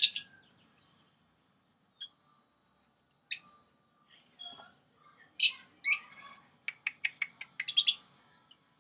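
Peach-faced lovebirds giving short, sharp, high chirps, spaced a few seconds apart and then coming faster near the end. A quick run of clicks comes just before the last chirps.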